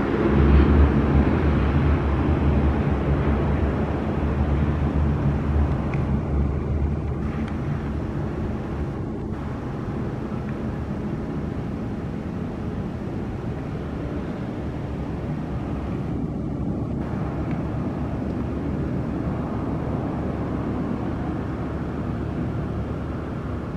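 Embraer Phenom 300 business jet's twin turbofan engines during the landing roll-out: a steady jet rumble and rush, loudest just after touchdown, then easing over the next several seconds into a lower, even noise as the jet rolls away.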